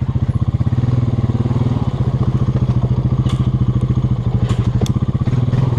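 Four-wheeler (ATV) engine running steadily at low revs, a fast even putter, with a few light clicks and knocks in the second half.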